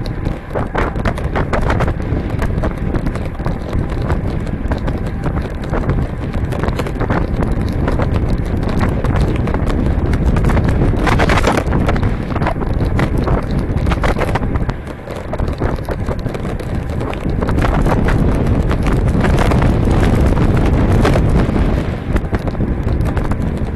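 Wind buffeting a bike-mounted 360 action camera's microphone while riding a road bike at speed, over a low rumble of tyres on the road. Many small rattling knocks run through it, from the bike and camera mount jolting over the surface; it drops briefly about two-thirds of the way in.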